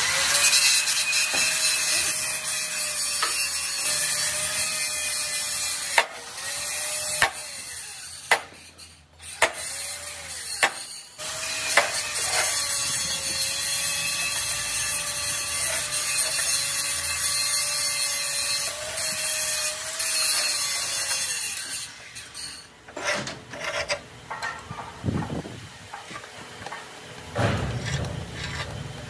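Electric angle grinder working steel plate: a steady hiss over a motor whine that wavers and dips as the disc is pressed into the metal. It pauses briefly partway through, stops about two-thirds of the way in, and is followed by scattered metal knocks.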